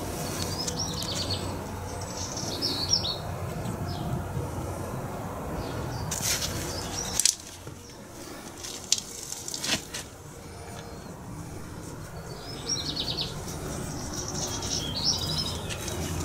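A songbird singing a short trilling phrase several times over, against a low steady hum that falls away about seven seconds in, with a few sharp clicks in between.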